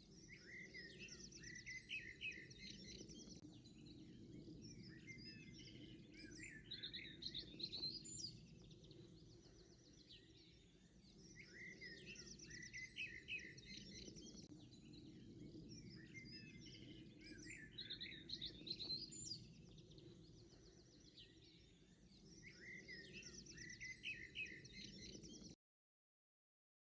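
A songbird singing short phrases of quick chirps, repeated about every six seconds, over a faint steady low background. The sound cuts out completely about a second before the end.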